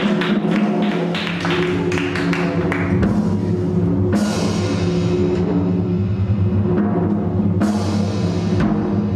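Live jazz band playing: a drum kit played busily under a held electric bass line, with cymbal crashes about four seconds in and again near eight seconds.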